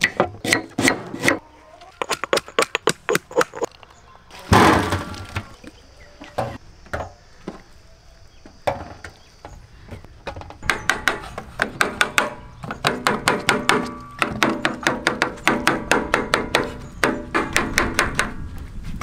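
Knife chopping food: fast runs of sharp strikes, sparser for a few seconds in the middle, with one louder knock about four and a half seconds in.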